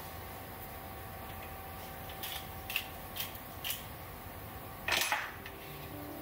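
Handling at a kitchen counter over a steady hum: a few light clicks and taps, then a louder scrape about five seconds in as the ceramic pizza plate is slid and picked up. Music starts near the end.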